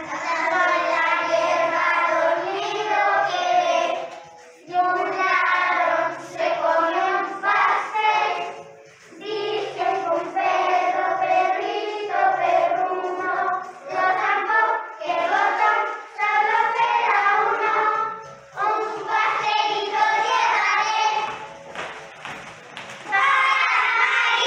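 A children's song: young voices singing in short phrases over a backing track with steady low bass notes.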